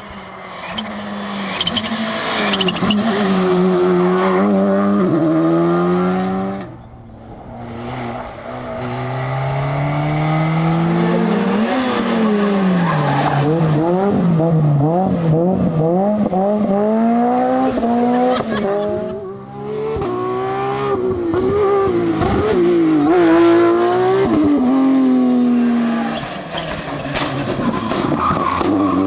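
Rally cars driving hard on a stage, one after another: engines revving up and dropping back repeatedly through gear changes and braking, with brief lulls between cars.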